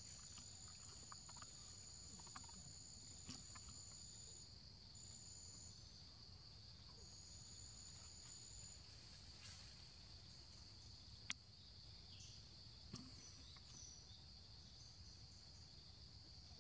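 Faint forest insects droning steadily at a high pitch, with a second, higher thin buzz that starts and stops several times in the first nine seconds. A single sharp click comes about eleven seconds in.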